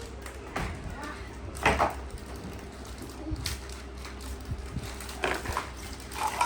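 Scattered knocks and clatters of plastic toy-kitchen pieces and packaging being handled, the loudest about two seconds in, with faint voices.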